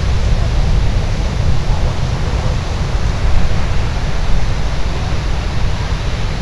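Wind buffeting the microphone, a steady rumble over an even hiss.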